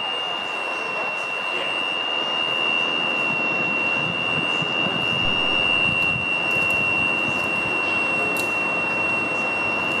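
Fire brigade aerial platform truck running, a steady engine and hydraulic drone with a continuous high-pitched tone over it.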